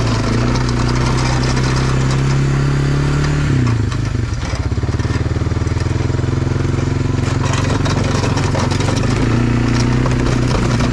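Engine of a 1999 Honda FourTrax 300 4x4 ATV, an air-cooled single-cylinder four-stroke, running as the quad pushes a snow plow. About three and a half seconds in the engine note drops to a lower, slower pulse, and it picks up again near the end.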